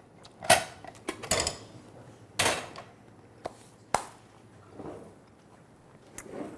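A cooking pot and its lid being handled on a stove: a string of clanks and knocks of cookware, some with a short ring. The loudest come about half a second in and around two and a half seconds in, with lighter clicks and knocks after that.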